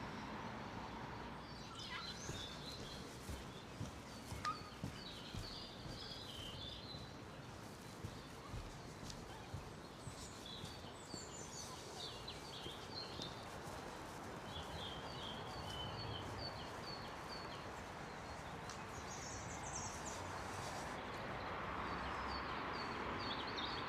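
Small songbirds chirping and twittering in short high bouts that come and go throughout, over a steady rushing background noise.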